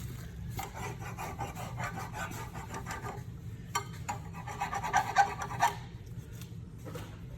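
Hand tool scraping the brake caliper bracket clean where the brake pads slide, in quick repeated rasping strokes, loudest about four to five and a half seconds in, with a few sharp clicks.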